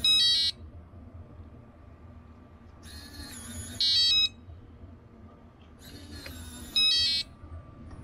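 RVLock keyless RV entry door lock worked by its remote key fob, cycling three times. Each time a short whir of the lock mechanism is followed by a loud burst of high beeps confirming the lock or unlock, at the start, about 4 s in and about 7 s in.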